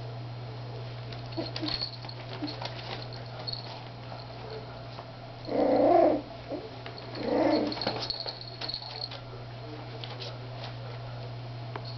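Three-week-old Miniature Schnauzer puppies vocalising, with two short cries a little over a second apart about halfway through, among the scratchy rustle of newspaper under their feet. A steady low hum runs underneath.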